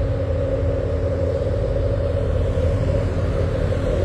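Heavy diesel container trucks climbing a hill, their engines giving a steady low rumble.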